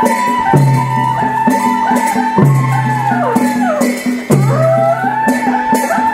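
Traditional folk music: a lead melody that slides in pitch over a steady low drone, with rattling percussion.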